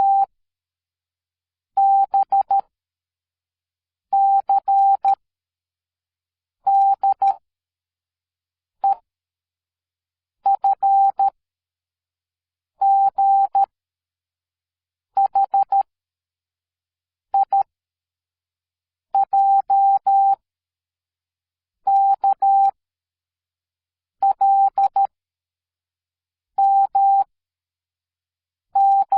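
Morse code beeps: a single steady tone keyed on and off in short groups of dots and dashes, about one group every two to three seconds with silence between them.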